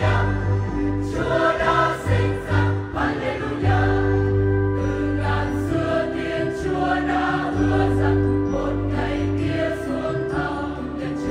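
Church choir singing a Christmas hymn in Vietnamese in parts, with sustained notes over a steady low bass.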